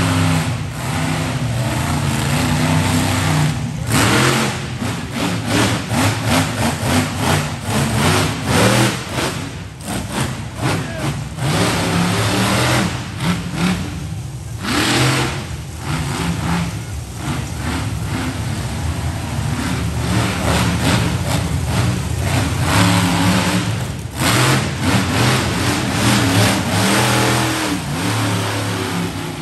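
Monster truck engine revving hard again and again, the pitch repeatedly climbing and dropping, with several very loud full-throttle surges, the strongest about 4, 10 and 15 seconds in.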